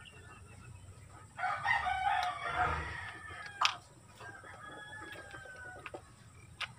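A rooster crowing once, starting about a second and a half in and lasting about a second and a half, followed by a single sharp click.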